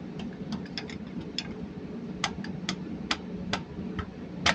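A series of sharp, irregular metallic clicks and taps from hand tools and parts being handled on a diesel engine. They are light at first and grow stronger from about halfway, with the loudest click at the very end, over a steady low background hum.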